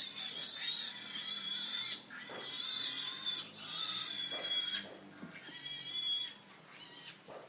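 Pigs squealing: a run of long, shrill squeals with short breaks between them, growing fainter after about six seconds.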